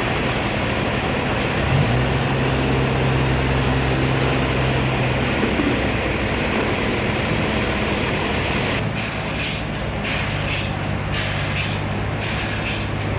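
Sawmill machinery running steadily with a low hum. From about nine seconds in, short hissing pulses repeat at about two a second.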